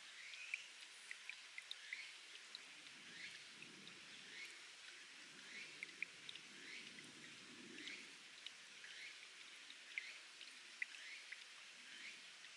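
Faint spring water trickling and dripping off rock, with scattered sharp drips and short bird chirps repeating about once a second.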